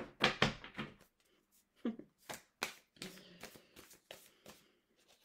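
A deck of oracle cards being shuffled by hand, a string of irregular sharp snaps and flicks as the cards are cut and riffled.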